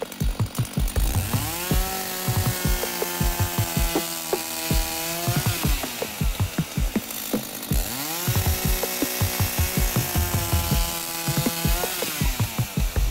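Petrol chainsaw revved up to full throttle and held there while cutting through a thick timber beam, then dropping back to idle. This happens twice, starting about a second and a half in and again about eight seconds in.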